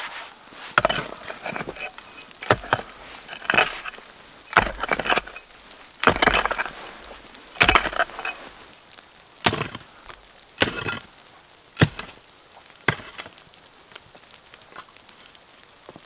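Pickaxe striking stony soil in a trench, about a dozen blows roughly a second apart, each with a crunch and clink of stones. The blows stop a few seconds before the end, leaving only faint scuffs.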